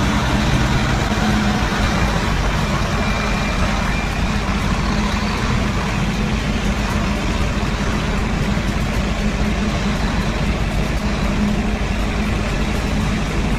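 Tractor-trailer running steadily as it moves slowly past: a continuous diesel drone with a dense noise over it, with no sharp events.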